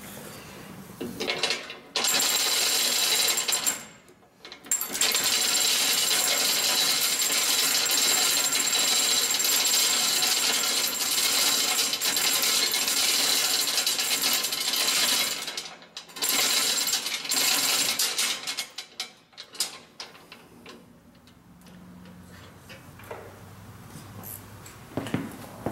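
A motor-driven machine or power tool running loud and steady with a high whine. It runs in a short stretch of about two seconds, then a long stretch of about thirteen seconds with a brief break, then stops. A faint low hum follows near the end.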